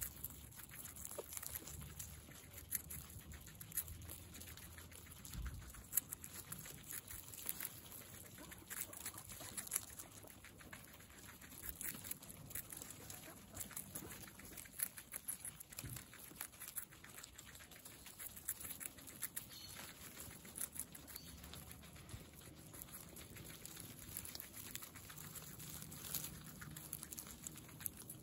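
Guinea pigs chewing crisp cucumber and leafy greens close up: a steady, fast run of small crunching clicks.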